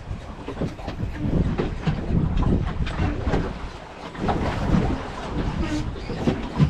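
Wind buffeting the microphone and water slapping against a small boat's hull, with uneven knocks and rattles, while a fishing reel is wound in against a hooked fish.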